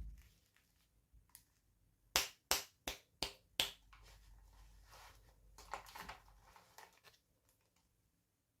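Five sharp clicks in quick succession about two seconds in, then softer rustling and handling noise with a few fainter clicks, as toy packaging is opened and handled.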